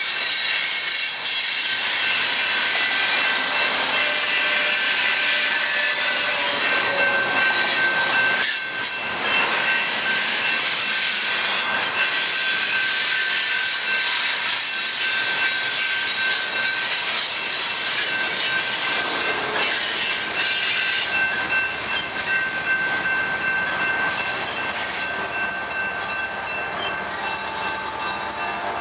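Coal hopper cars rolling past on steel wheels: a steady loud rush of wheels on rail with several high, steady squealing tones over it. The sound eases a little in the last several seconds.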